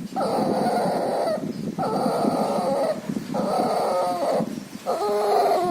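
A puppy's loud, crackly, congested breathing: four laboured breaths of about a second each, the last turning into a short whimper near the end. The noisy breathing is a sign of the puppy's pneumonia and distemper.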